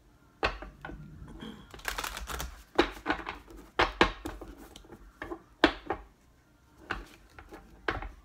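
Irregular sharp clicks and taps of small objects being handled on a tabletop, about a dozen over the span, as an oracle card deck and its stones are moved about.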